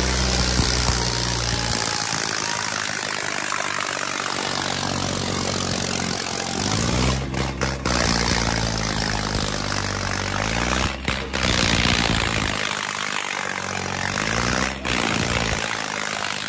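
Tractor diesel engines labouring at high revs under heavy load in a tractor tug-of-war, the engine note rising and falling a few times. A large crowd is shouting over it.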